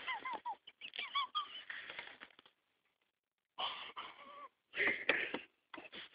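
Stifled, wheezing laughter held back in several short bursts, with breathy gasps and near-silent pauses between them.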